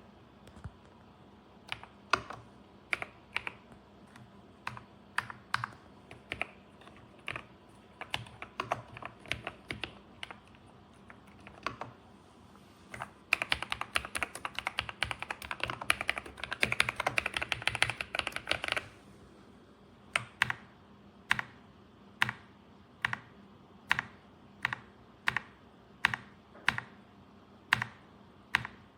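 Kisnt gasket-mounted mechanical keyboard with linear switches being typed on. Scattered keystrokes give way to a burst of fast typing lasting about six seconds around the middle, then single keys are pressed one at a time, about one every three-quarters of a second.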